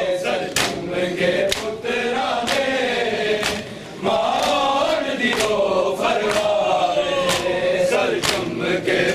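A group of male mourners chanting a noha (Muharram lament) together, with sharp chest-beating (matam) strikes about once a second keeping the beat.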